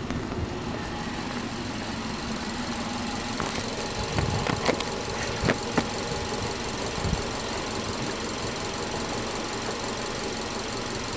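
Subaru Legacy B4 2.5i's 2.5-litre flat-four boxer engine idling steadily, heard at the front of the car with the bonnet open. A few sharp knocks sound between about four and six seconds in.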